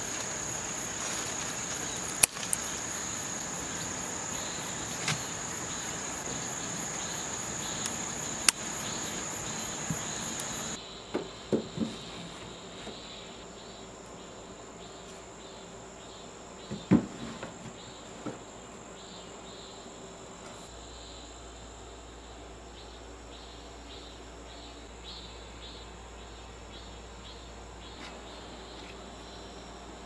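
Crickets chirping steadily in a high, shrill trill, which drops quieter about ten seconds in. A few sharp clicks stand out in the first part, and later there are small clusters of knocks as books are set on a wooden shelf.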